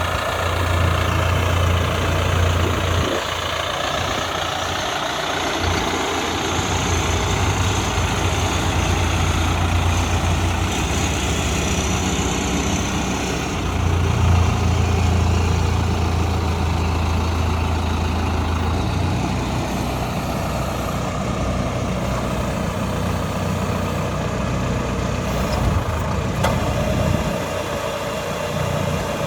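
70 kW diesel engine of a PY80 crawler drill rig running steadily with a deep, low hum that swells and eases a few times.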